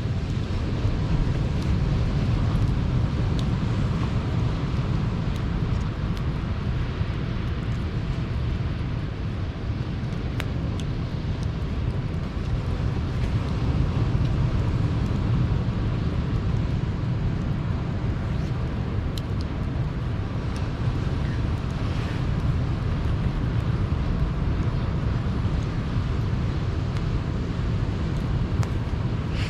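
Sea surf washing on the shore as a steady low rumble, with wind on the microphone and a few faint crackles from a campfire.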